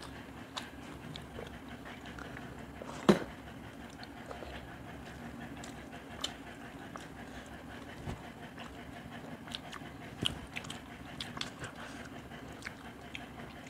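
Close-miked eating sounds of fish curry and rice eaten by hand: scattered mouth clicks and chewing, with fingers working the food on steel plates, over a low steady hum. One sharp click about three seconds in is the loudest, and a quick run of clicks comes near the end.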